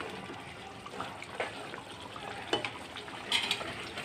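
Chicken curry simmering in the liquid released from the meat in a metal kadai, with a few light clicks and scrapes of a metal spatula stirring through it.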